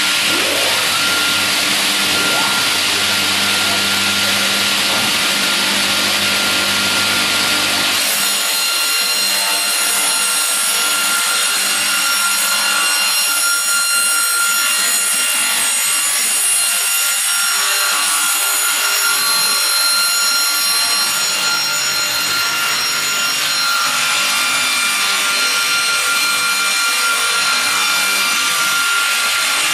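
GP-500VRP slab-processing saw machine running and sawing wood slabs, a loud, continuous saw noise. About eight seconds in the low hum drops away, leaving a higher whine with several steady tones.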